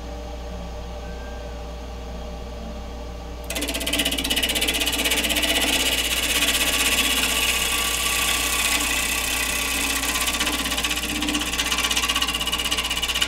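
Nova DVR 3000 wood lathe running with a steady hum. About three and a half seconds in, a turning chisel bites into the spinning log and a loud, fast chattering scrape begins as the rough bark is cut away. It stops abruptly near the end.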